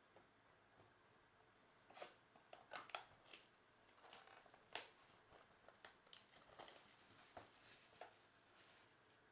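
Plastic shrink wrap crinkling and tearing as it is stripped off a cardboard trading-card hobby box. It comes as a run of faint, irregular crackles starting about two seconds in.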